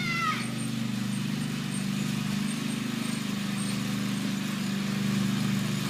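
Craftsman GT5000 riding lawn mower's engine running at a steady speed.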